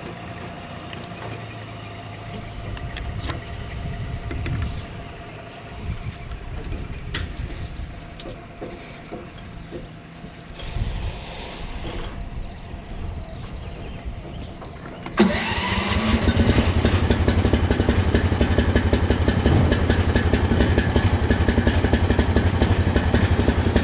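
A mini skid steer's small 15-horsepower engine starts abruptly about fifteen seconds in, its pitch rising briefly, then runs loud and steady with a fast even beat. Before it starts there is only a lower vehicle rumble with a few scattered knocks.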